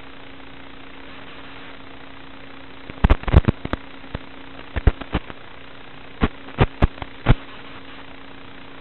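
Steady static hiss with a low hum, the audio of an analog FPV video link. It is broken by about fifteen sharp, irregular pops in three bunches starting about three seconds in.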